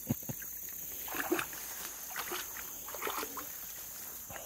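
A yellow Labrador wading through a shallow creek pool, the water sloshing and splashing around its legs in a few short bursts.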